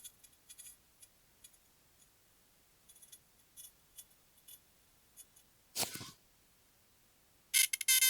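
Electro-acupuncture device's electronic beep, a steady buzzy tone that starts near the end, signalling that the needle sits on the correct acupuncture point (a reading above 500). Before it come only faint clicks and a short noise about six seconds in.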